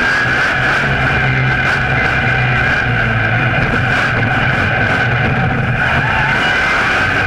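Monster truck engine running hard during a freestyle run, heard close up from a camera mounted on the chassis beside the front wheel: a loud, steady drone.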